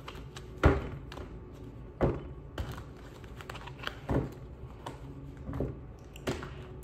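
Tarot cards being shuffled by hand: irregular soft slaps and flicks as the deck is cut and cards drop between the hands, about six distinct ones.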